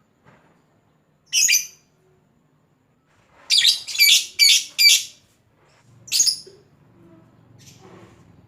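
Lovebird calling in short, shrill chirps: one about a second and a half in, then a quick run of four, then one more near the end.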